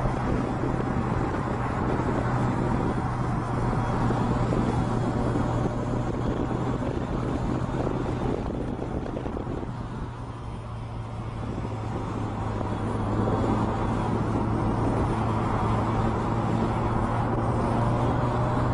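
Vehicle engine and road noise: a steady low hum, easing off briefly about ten seconds in and then picking up again.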